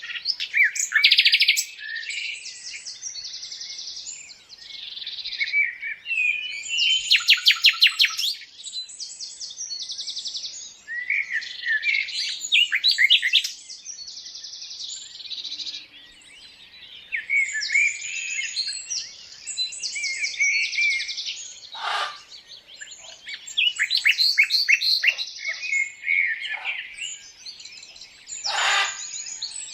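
Birds chirping and singing: a busy run of overlapping high chirps and quick trills, with two sharper calls in the latter part.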